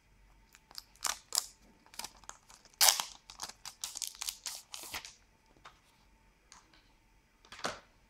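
Thin plastic protective film being peeled off a smartphone's glass, a run of short crackling, crinkling bursts about a second in to five seconds in, with one more near the end.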